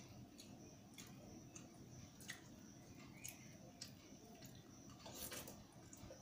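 Near silence with faint, irregular soft clicks and a few wet squishing sounds of eating by hand: fingers mixing rice and dal on a steel plate and chewing, with a slightly longer burst about five seconds in.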